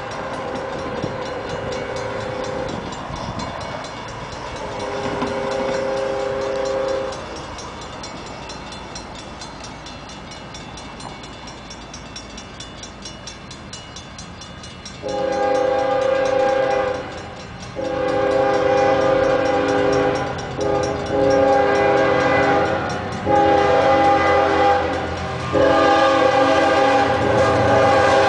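Multi-note air horn of a Union Pacific freight train's lead GE Evolution-series locomotive (an ES45AC, per the uploader) sounding for a grade crossing as it approaches. Two fainter blasts come first, then after a lull of about eight seconds, five loud blasts with short breaks between them. The low rumble of the oncoming train grows underneath.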